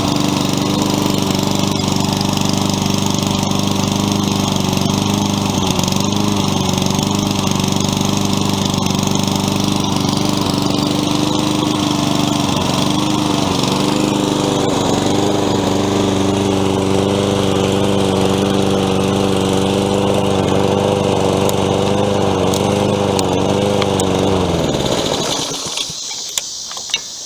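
Honda engine of a Toro Personal Pace mower running steadily, its pitch wavering slightly in places: a light surge, which the owner suspects comes from a little stuff in the carburetor after the mower sat. Near the end the engine is shut off and winds down to a stop, followed by a few clicks.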